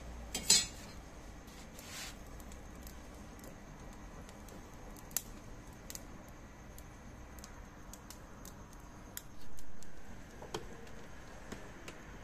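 A sharp metal clank of grill tongs about half a second in, then a lighter clink, with scattered faint crackles from burning charcoal. A brief rush of air comes about nine seconds in.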